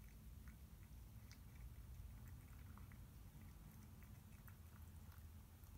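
A cat eating wet food from a stainless steel bowl: faint, irregular small clicks of chewing and licking.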